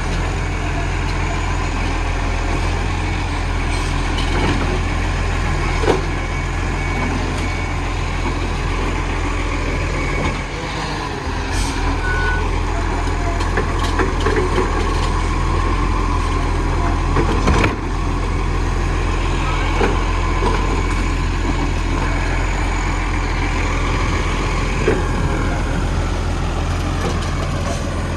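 Dennis garbage truck's diesel engine running steadily, with a few sharp knocks and clanks now and then.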